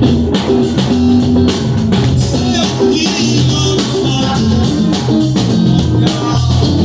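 Band music: drum kit keeping a steady beat under bass and guitar in an instrumental passage between sung lines.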